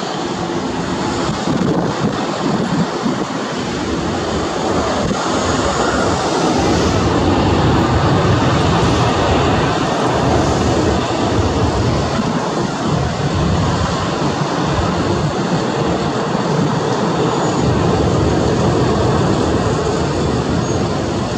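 Jet engines of a Boeing 737-800 (CFM56-7B) during the landing rollout: a loud, steady rush that swells a few seconds in and eases off near the end as the airliner slows on the runway.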